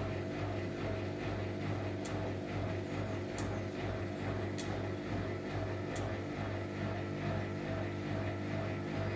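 Samsung Eco Bubble washing machine running a cotton cycle: a steady motor hum with a faint throbbing pulse, and four faint sharp ticks about every second and a half from about two seconds in.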